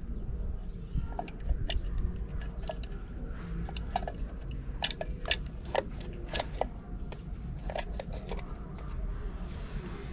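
Irregular small clicks and clatters of parts and tools being handled during work on a FANUC industrial robot, over a faint steady hum.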